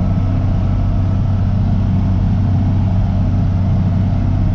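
Tractor engine running steadily under load while pulling a round baler through corn fodder, an even drone with no change in pitch or level.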